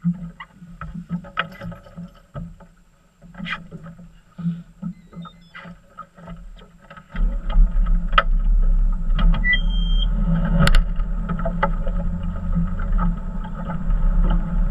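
Fishing boat's outboard motor, at first a low hum with scattered knocks and rattles on the hull, then about seven seconds in a sudden louder, steady low rumble as the boat gets under way, with wind on the microphone. A short high beep sounds about two-thirds of the way in.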